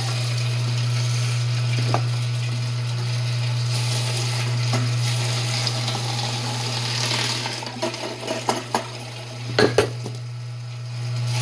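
Angel twin-gear stainless-steel juicer running with a steady low hum as a carrot is pushed down its feed chute. A few sharp clicks come near the end.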